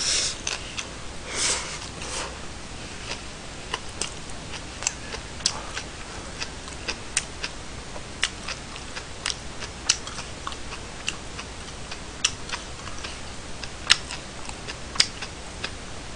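Jjolmyeon noodles being slurped twice in the first two seconds, followed by scattered short sharp clicks about once a second.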